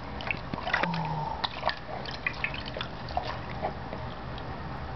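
Shallow bath water lightly splashing and dripping as a baby moves in a small tub, with a cluster of small splashes in the first two seconds that thin out after.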